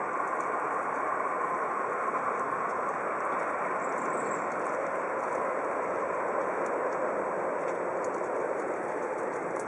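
Steady, even outdoor city ambience, a constant rush of distant traffic.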